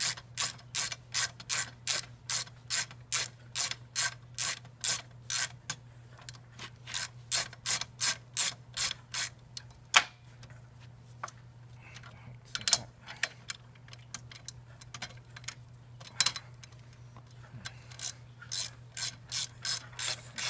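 Ratchet wrench clicking in even strokes, about two a second, as a crash-bar mounting bolt is turned. About halfway it stops, with one sharp click and a few scattered ones, then the ratcheting starts again near the end.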